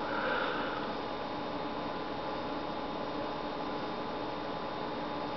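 Steady background hum and hiss of a computer running, with a few faint steady tones.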